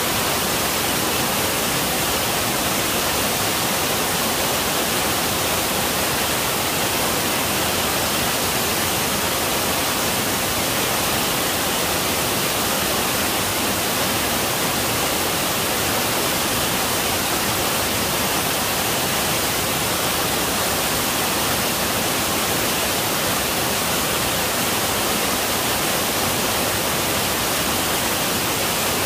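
Waterfall pouring down a rock face: a steady, unbroken rush of falling water.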